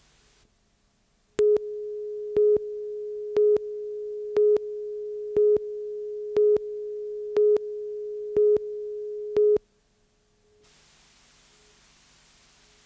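Videotape countdown leader: a steady line-up tone with a short, louder beep every second, nine beeps in all. It cuts off near the end, leaving faint tape hiss.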